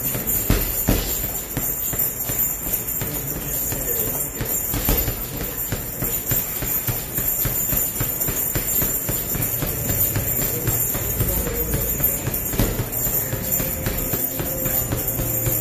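Punches thudding into a hanging heavy bag, landing irregularly every second or so, over a steady high hiss.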